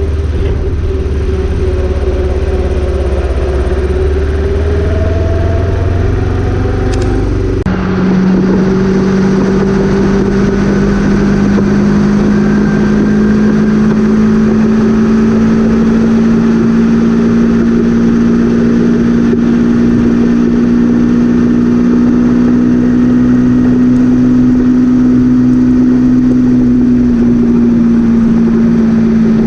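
A motor vehicle's engine running at a steady speed: a low rumble that changes abruptly about eight seconds in to a steady, louder drone, which rises slightly and then eases off near the end.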